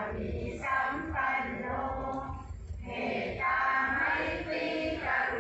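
A group of voices chanting Buddhist prayers together in unison, in steady phrases with short pauses between them.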